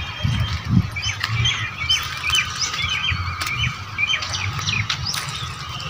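Small birds chirping, many short quick calls one after another, over an uneven low rumble.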